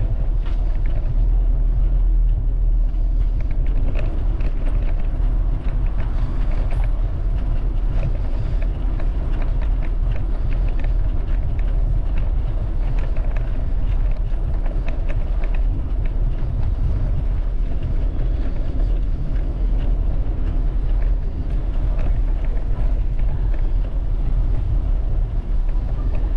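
Steady low rumble of street and riding noise heard from a bicycle moving through city streets, with faint clicks and rattles scattered through.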